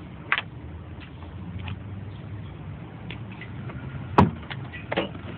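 A few sharp clicks and clacks of lockout tools being handled at a car door, the loudest one about four seconds in, over a low steady hum.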